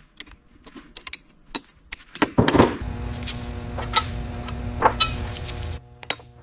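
Workshop machinery sounds. Scattered sharp metallic clicks come first. About two seconds in, a steady low mechanical hum with further clinks starts, and it stops shortly before the end.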